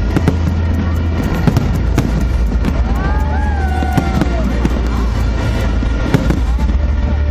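Fireworks display: a dense run of bangs and crackles over a steady low rumble, with crowd voices and music underneath.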